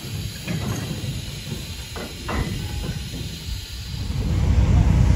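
BR Standard Class 2 2-6-0 steam locomotive No. 78018 moving slowly, with a steady hiss of steam and a few soft exhaust beats. A low rumble builds up near the end.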